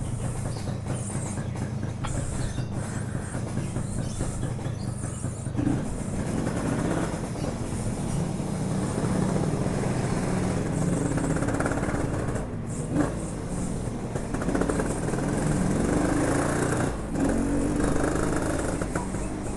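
Yamaha RX-King 135cc two-stroke motorcycle with a Packing Power aftermarket exhaust running steadily, then pulling away and riding along from about six seconds in as the engine note rises. Another motorcycle's engine, described as fairly loud, is mixed in.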